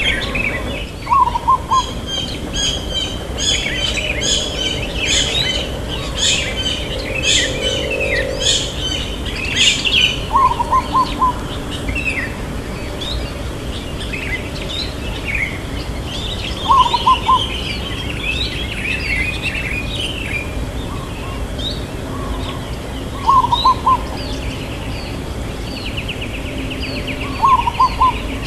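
Zebra dove cooing: five short bursts of quick, pulsed notes, about one every six seconds, the loudest sounds here. Other small birds chirp busily behind it, thickest in the first ten seconds.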